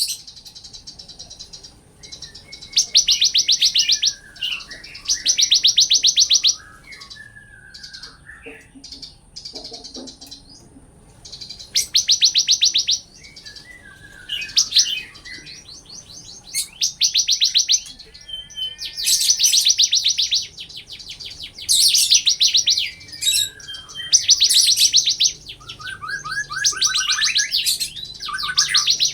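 Bar-winged prinia (ciblek kristal) singing: repeated rapid high trills, each about a second long, with softer chirps in the gaps between.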